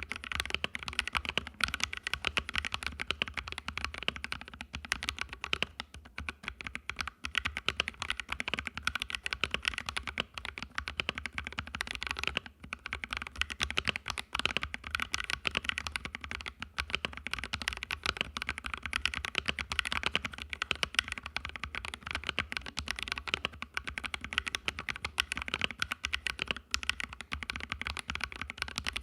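Mechanical keyboard with fully lubricated Wild Pansy tactile, non-clicky switches being typed on fast and continuously: a dense run of keystroke clacks with a few short pauses.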